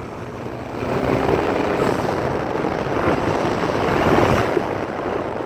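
Turbocharged car pulling under throttle, heard from inside the cabin: a broad rush of engine, intake and road noise that builds and then drops off suddenly right at the end as the throttle is lifted. The newly fitted aftermarket blow-off valve vents too quietly to stand out.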